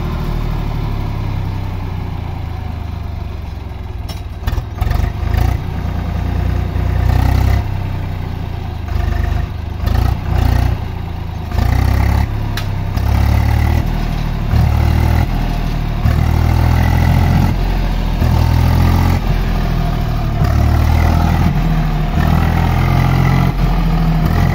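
Swaraj 735 XT tractor's three-cylinder diesel engine revving in repeated surges under load, the tractor stuck in mud and trying to drive out. A few sharp clattering knocks in the first half.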